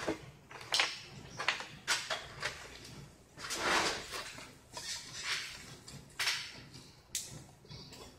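Close-up eating sounds: chewing and lip smacks in a string of short sharp noises, with a plastic water jug being handled and set down. One longer noise comes a little past three seconds in.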